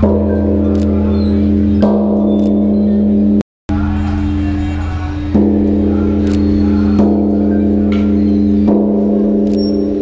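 Large bronze temple bell struck repeatedly with a swinging wooden log striker, five strikes a second or two apart, each ringing on in a deep, steady hum under the next. The sound drops out briefly just before the middle.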